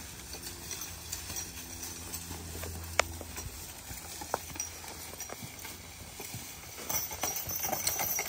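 A team of two draft mules walks, their hooves thudding and shuffling on leaf-covered dirt as they ground-skid a log, with a sharp clink about three seconds in. The scraping and rustling of the dragged log gets louder near the end.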